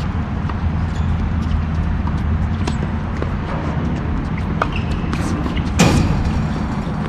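A tennis racket strikes the ball with one sharp, loud pop about six seconds in, like a serve hit close by. Fainter ball knocks come and go over a steady low rumble.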